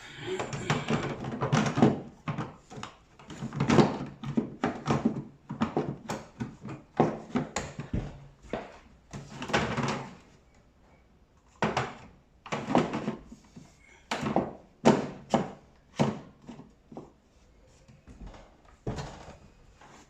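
Irregular knocks, clunks and rattles of tumble dryer parts being handled and fitted during assembly, coming in clusters with short pauses between them.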